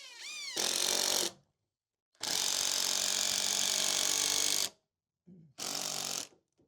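Power drill-driver driving screws into wooden bracing boards: a quick rising spin-up, then three runs, a short one, a longer one of about two and a half seconds, and a brief one near the end.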